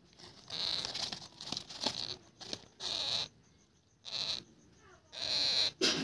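Baby Indian ringneck parrot chick giving short, hoarse begging calls, about five of them with pauses in between.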